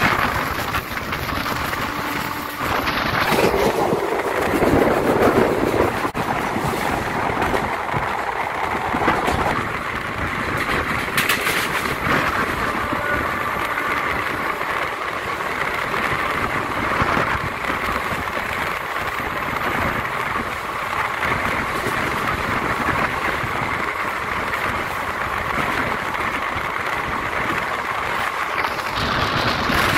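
Steady running noise of a moving passenger train, wheels on rails with wind. A lower, louder rumble swells for a couple of seconds about four seconds in.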